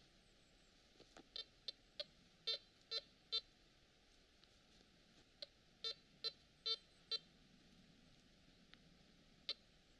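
Makro CF77 metal detector giving short beep signals as its coil is swept over a target in iron-discrimination mode, in two runs of about five beeps a few seconds apart, then one more beep near the end.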